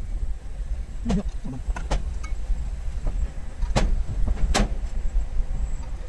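Low, steady rumble of a car creeping forward at low speed, heard from inside the cabin, with several sharp knocks, the loudest two a little before and after the middle.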